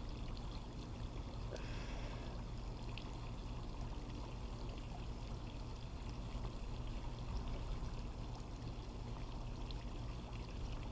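Faint, steady running and lapping of swimming-pool water.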